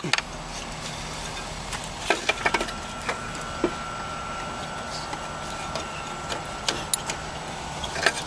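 Scattered light clicks and knocks of a replacement alternator being worked by hand into its mounting bracket on a 2004 Toyota Corolla engine, over a steady low background hum.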